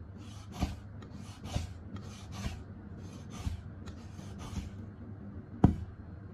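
Chinese cleaver slicing pork into thin slices on a wooden chopping board, drawn forward and back through the meat. Each stroke scrapes, about once a second, and ends in a knock on the board, six times in all, the sharpest knock near the end.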